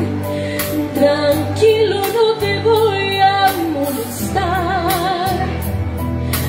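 A woman sings a slow Spanish-language ballad through a microphone and PA, holding long notes with vibrato, the longest about four and a half seconds in. She is backed by electronic keyboard chords and a steady, regular beat.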